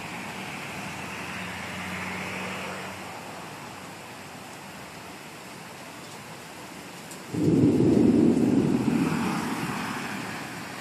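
Thunderstorm: a steady hiss of rain, then about seven seconds in a sudden loud thunderclap that rumbles and fades away over about three seconds.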